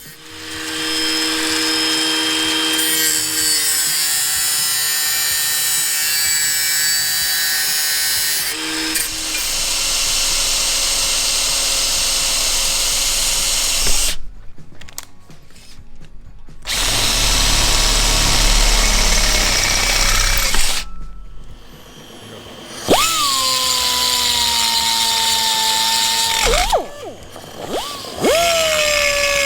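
Hand-held grinder cutting sheet steel in two long passes with a short pause between them. Later it spins up twice with a quickly rising whine and runs steadily unloaded, dying away once between the two.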